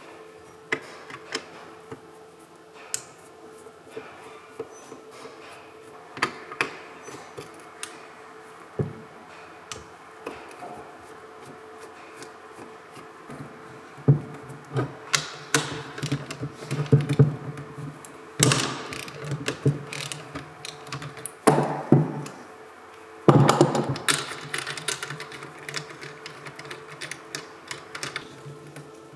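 Workshop work on car alternator parts: irregular clicks and metallic taps of tools on metal. From about halfway come three runs of a few seconds each of denser, louder clattering with a low whirr.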